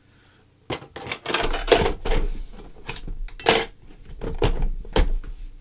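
Hard plastic knocks, clicks and rattles of a cordless jigsaw/sabre saw and its 20 V battery pack being fitted into their hard plastic carry case, starting under a second in.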